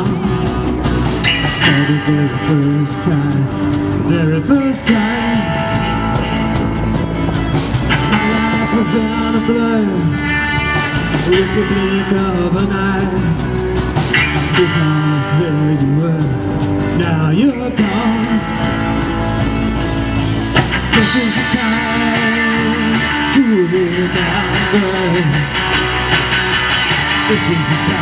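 Rock band playing live: electric guitars, electric bass and a drum kit, with a man singing.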